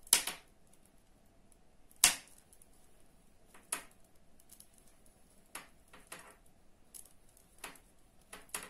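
Knitting needles clicking against each other while stitches are bound off: a few sharp ticks one to two seconds apart, the loudest at the start and about two seconds in.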